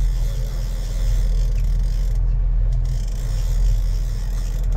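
Fishing boat's engine running steadily underway, a constant low drone.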